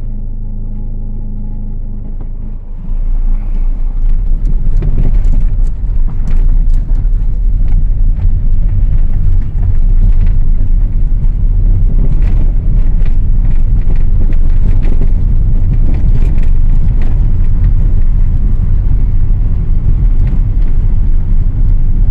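Car interior with the passenger window partly down: a steady engine hum for the first few seconds, then, about three seconds in, a much louder rumble of wind buffeting through the open window and road noise as the car gets under way.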